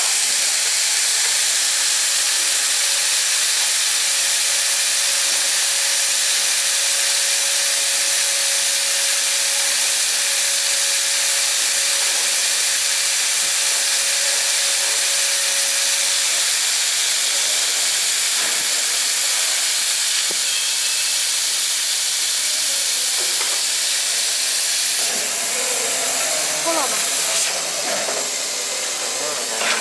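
Steady hiss of compressed air blowing through the cutting nozzles of a twin-head laser cutter as it cuts a wooden board, with a faint steady hum through the middle. About 25 seconds in the hiss drops as the cut ends, and a few light knocks follow.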